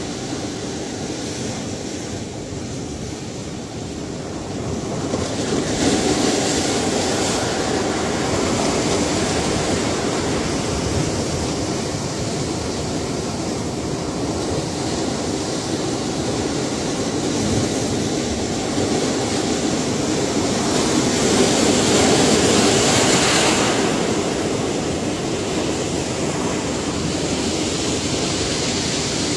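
Ocean surf: a steady wash of waves with two bigger waves swelling and breaking, the second one louder.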